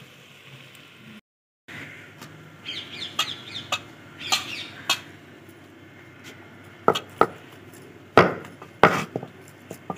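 Chickens clucking in the background. Later come several sharp knocks and slaps as dough is kneaded by hand in a metal bowl.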